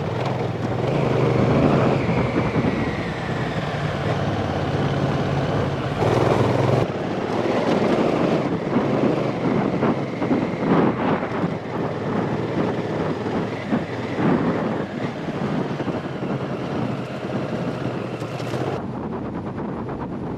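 Motorcycle engine running steadily while riding, with wind noise on the microphone. The sound changes abruptly near the end.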